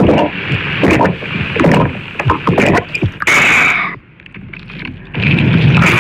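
Close-miked eating of rice noodle soup: irregular wet slurping and chewing mouth sounds, with a longer slurp about three seconds in.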